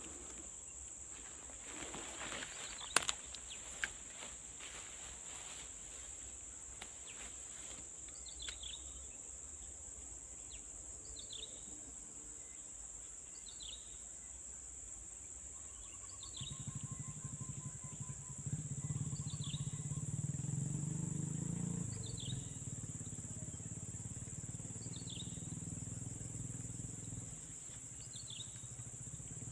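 Outdoor ambience: a steady, high-pitched insect drone, with a bird repeating a short falling call about every two seconds from about a quarter of the way in. A low hum comes in about halfway through and drops away near the end, and there are a few sharp clicks in the first few seconds.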